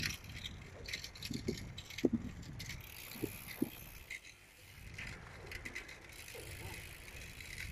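Loaded touring recumbent trike rolling along, with light rattling and scattered clicks over a low rumble of the tyres.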